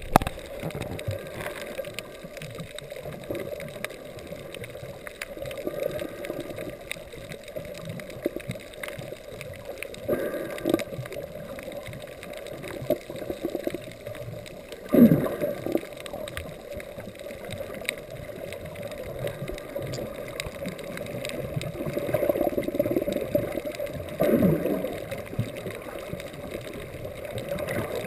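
Muffled sound of sea water moving under the surface, with surface waves washing overhead and louder gurgling surges a few times, the strongest about halfway through and again near the end.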